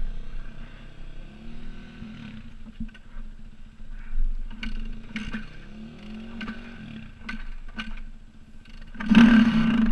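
Yamaha dirt bike engine running at idle, with a few short knocks and some rising and falling revs; about nine seconds in it is revved up loudly.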